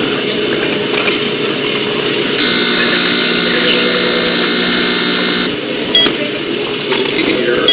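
An electric buzzer sounds for about three seconds over a steady background hum, starting and cutting off abruptly, followed by two short high beeps.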